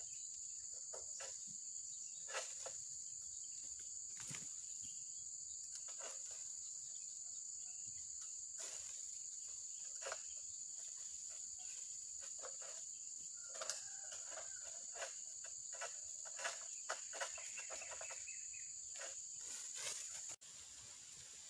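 Steady high-pitched drone of insects, with scattered sharp clicks and knocks; the drone drops away abruptly near the end.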